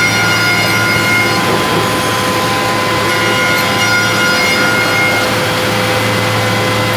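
Automatic edgebanding machine running: a steady hum and motor whine with several constant tones over machine noise, the higher whine strengthening twice, about a second in and again around three seconds.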